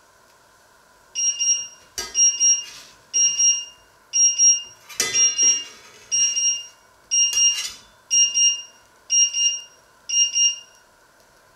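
Electronic alarm beeping, one shrill tone about once a second, about ten beeps in a row starting just over a second in. A few sharp scrapes of a knife against the steel frying pan sound in between.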